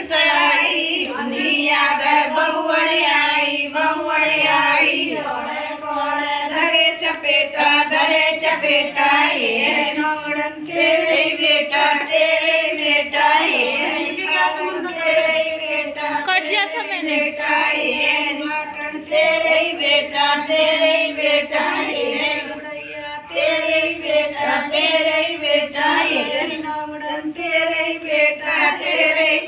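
A group of women singing a Devuthni devotional folk song together, their voices in unison and continuous.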